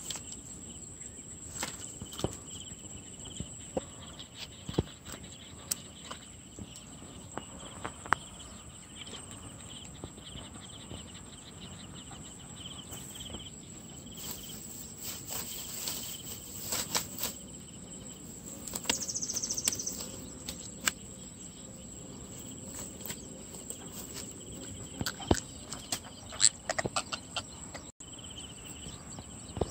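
A steady high insect drone in two pitches runs throughout. On top of it are scattered sharp slaps, rustles and knocks as a freshly landed fish flaps in the grass and is handled and unhooked, busiest about halfway through.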